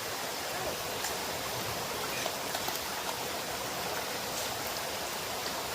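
Mountain stream running high after rain: a steady rush of water, with a few faint clicks.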